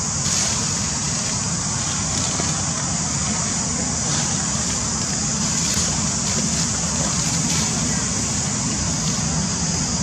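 Steady outdoor background noise: a constant high hiss with a low rumble underneath, and no single sound standing out.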